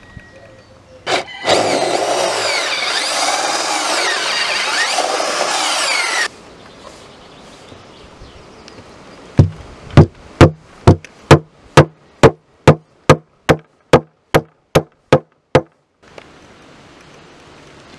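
A power tool runs for about five seconds. Later comes a run of about fifteen sharp, evenly spaced knocks, two or three a second: wooden plugs being tapped into screw holes in a hardwood slat countertop.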